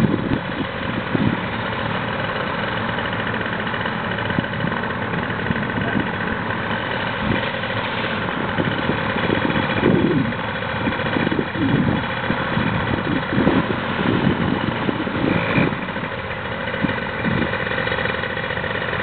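Paramotor's backpack engine running steadily at idle, a constant drone with several steady overtones.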